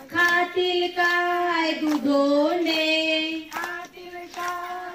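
Women's voices singing a traditional Marathi bhondla song in long held notes, with hand claps marking the beat as they circle.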